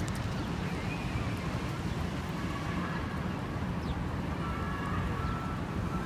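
Steady low rumble of city traffic and wind on the microphone, with a few faint, short high chirps from a flock of house sparrows.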